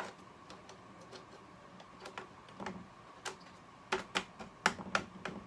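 Light clicks and taps of a strip of model tank track links being handled and set onto a scale tank's turret roof, with a quick run of sharper clicks about four to five seconds in.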